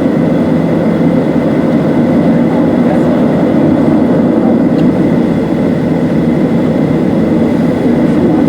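Steady cabin drone inside a Boeing 737-700: a continuous low rumble with a faint, steady high whine above it.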